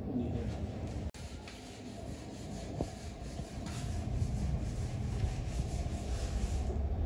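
Hands rubbing and pressing rubber edge trim onto the rim of a motorcycle helmet shell, making quick repeated rubbing strokes over a steady low hum.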